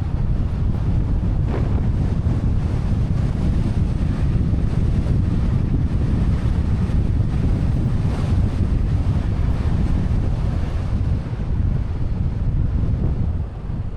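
Wind buffeting the microphone over the low, steady rumble of a Kia Sportage driving along a road, easing slightly near the end.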